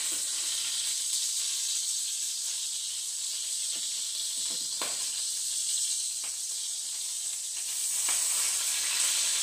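Beef burger patties and jalapeño rings sizzling in hot grease in a skillet: a steady frying hiss that grows a little louder near the end. A few light clicks of a spatula against the pan.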